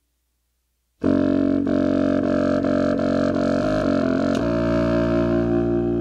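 Solo contrabassoon: after about a second of silence it comes in suddenly with a string of short, low, detached notes, then holds one long note from about four seconds in.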